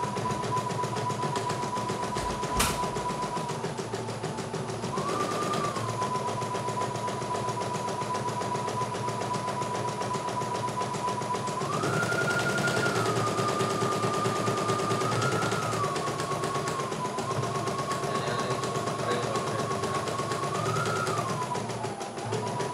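CNY E900 portable embroidery machine stitching a design, a rapid mechanical chatter over a steady whine that steps up and down in pitch several times. One sharp click comes about two and a half seconds in.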